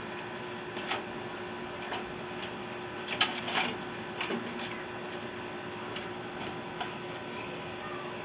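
Scattered light clicks and clinks of metal parts being handled while a scrap microwave is taken apart, with a louder cluster of knocks about three seconds in, over a faint steady hum.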